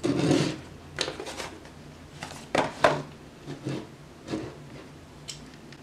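Tabletop handling sounds: a paperboard product box and a metal camera cage with small accessories being picked up and set down on a wooden table. A brief rustle at the start, then a few scattered light clicks and knocks.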